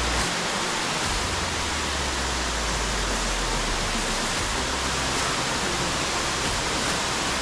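Steady rush of mountain-stream water tumbling over rocks and cascades, an even hiss that holds at a constant level, with a low rumble coming and going underneath.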